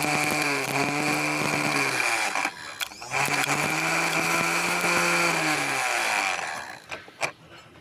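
Freshly serviced Massey Ferguson tractor starter motor spinning free on a no-load bench test, run twice: a steady whirring whine that winds down about two seconds in, starts again a second later and winds down again near six seconds, followed by a few sharp clicks. It turns easily with no drag and the pinion gear throws forward properly, the sign of a good repair.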